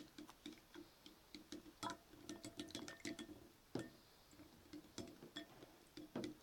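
Faint, irregular clicks and taps of a spoon stirring a runny guar-gum slime mixture in a bowl, with a slightly louder knock about two seconds in and another near four seconds.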